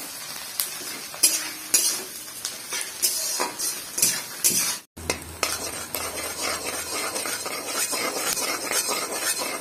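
Sliced onions and garlic sizzling in hot mustard oil in a metal kadhai, with a spatula scraping and clinking against the pan as they are stirred. The sound breaks off for a moment about halfway, then the frying and stirring go on steadily.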